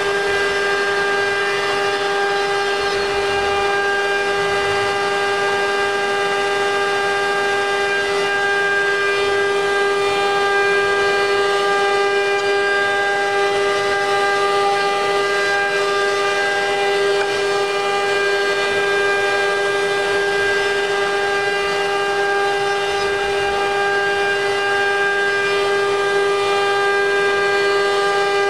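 Wood CNC router spindle running at a steady speed, a constant high whine with overtones, while its bit cuts a spiral into a wooden blank turned on the rotary axis, adding a rough cutting hiss.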